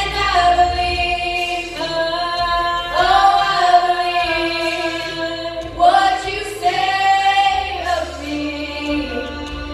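Four girls singing together into handheld microphones, holding long notes in slow phrases with short breaks between them.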